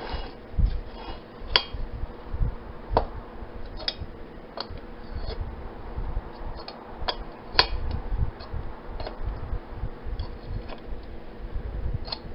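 Small metal parts of a Coleman lantern clicking and clinking as it is taken apart by hand, with the tip-cleaner handle being worked off. Irregular sharp ticks, a couple of them louder, with dull knocks and a faint steady hum underneath.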